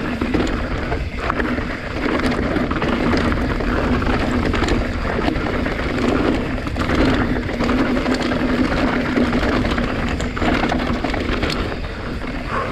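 Orbea Occam mountain bike ridden fast down a rocky trail: tyres rolling over dirt and stones, with a constant run of small knocks and rattles from the bike, and wind on the helmet-camera microphone.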